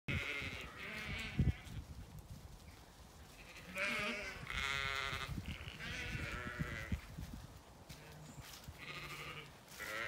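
Zwartbles ewes bleating, about seven quavering calls from several sheep, some overlapping. A sharp thump about a second and a half in is the loudest moment.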